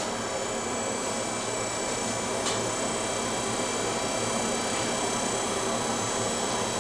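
Steady rushing hum of the blacksmith's forge running, with a single hammer strike on the steel about two and a half seconds in.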